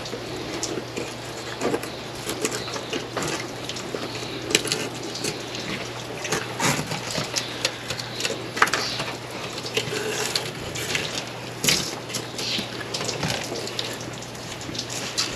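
Fillet knife cutting the cheek meat out of a Pacific halibut: irregular wet squelching and clicking of the blade through skin and flesh, over a steady low hum.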